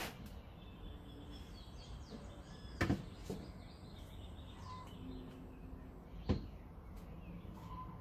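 Birds chirping faintly over a steady outdoor background hiss, with a few sharp knocks: one at the start, a double knock about three seconds in, and another a little after six seconds, louder than the birdsong.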